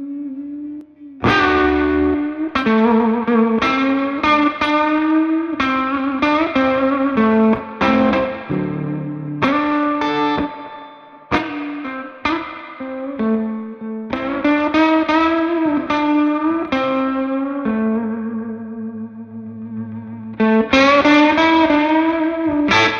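Ivison Dakota electric guitar with Sun Bear Sunbird pickups, played through a Magnatone Twilighter amp. It plays a lead phrase of picked notes, some of them bent, with a sharp loud attack about a second in and a long held note before another loud strike near the end.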